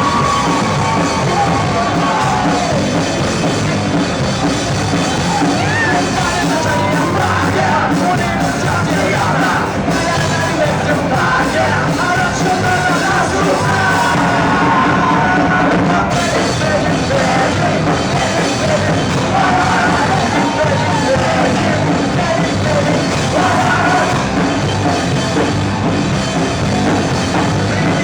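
Live rock band playing a punk-style song, with yelled and sung lead vocals over the full band.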